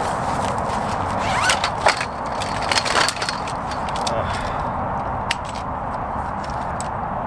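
A camp cot being unpacked from its nylon stuff sack and its frame poles pulled out: rustling, scraping and clacks, loudest and busiest between about one and three seconds in, with one more click near the end. A steady background rumble runs underneath.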